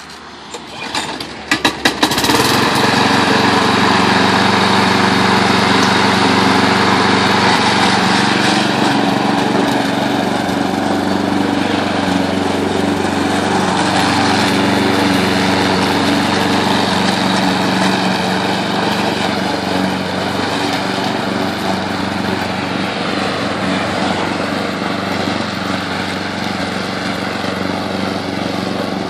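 Small single-cylinder engine of a walk-behind rotary lawn mower being started: a few sharp cranking spurts in the first two seconds, then it catches and runs steadily while cutting grass, growing slightly fainter as it is pushed away.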